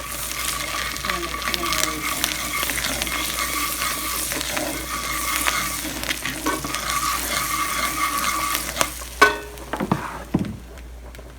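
Melted garlic butter with Cajun seasoning sizzling in a pan while a utensil stirs it, with many small scrapes and clicks against the pan. The sizzling and stirring drop off about nine seconds in, followed by a few separate knocks.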